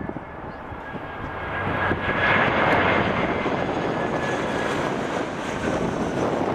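Airbus A319's CFM56 turbofan engines on final approach with gear down, passing low overhead. The jet noise swells about two seconds in and then stays loud, with a thin steady high fan whine through it.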